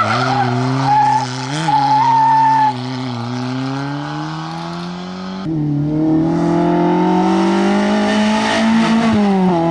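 Rally car engines at full throttle: a Citroën Saxo revving hard as it pulls away, pitch climbing with brief dips at the gear changes. About halfway through, a VW Golf Mk2's engine takes over, rising steadily and then dropping near the end.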